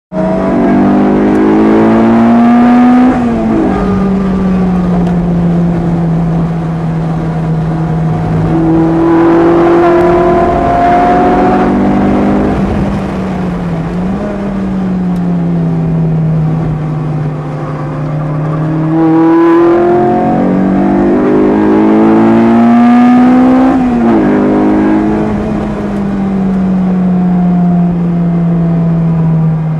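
Lotus Elise engine heard from inside the car while lapping a race circuit, the engine note climbing under acceleration and dropping back at gear changes several times, with a steadier note in between. Wind and tyre noise run underneath.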